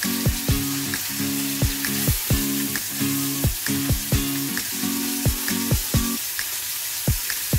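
Fish fillets sizzling steadily in hot oil in a frying pan, under background music with a steady beat whose low notes drop out about six seconds in.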